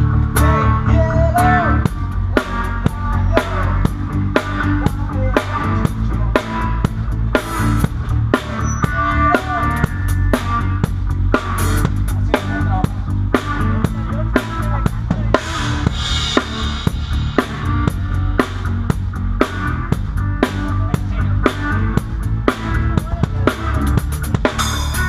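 Drum kit played in a steady groove: kick drum, snare with rimshots and cymbals, dense regular strikes over low sustained tones.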